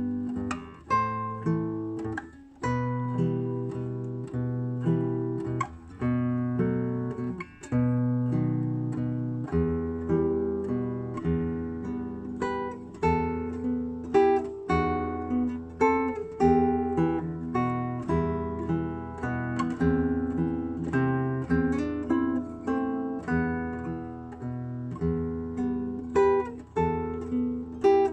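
Solo acoustic guitar playing a Venetian boat song (barcarolle): a plucked melody over held bass notes, note after note in a steady flow.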